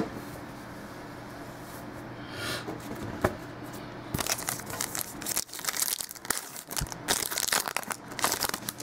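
A trading card pack wrapper being torn open and crinkled by hand: after a quiet stretch with a faint steady hum, a dense run of crinkling and tearing starts about halfway through and goes on to the end.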